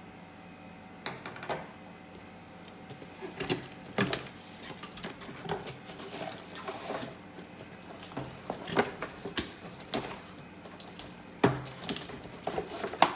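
Box packaging of a toy RC car being handled and pried open: irregular clicks, taps and knocks with some rustling, the loudest knock near the end.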